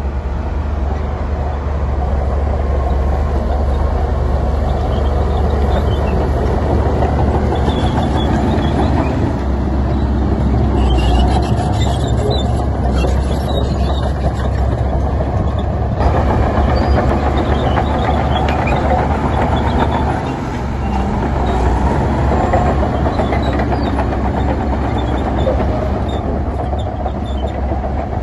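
Heavy diesel earthmoving machinery running steadily under load, with a deep engine drone and intermittent metallic clanks and squeaks.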